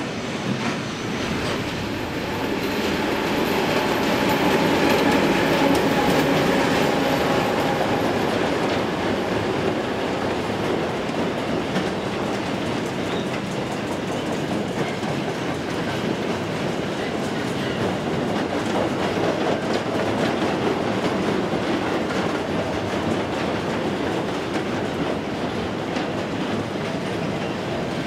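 Long freight train of double-deck car-carrier wagons rolling past, its wheels clattering steadily over the rail joints, a little louder a few seconds in.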